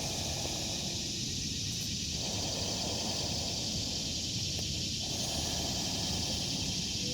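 Cicadas buzzing steadily in a forest chorus, with a lower buzz in the chorus that swells and drops out every couple of seconds.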